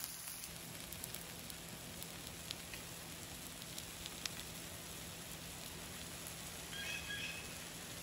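Eggs frying in butter in a cast iron skillet: a steady, quiet sizzle with a few small pops, over a low steady hum.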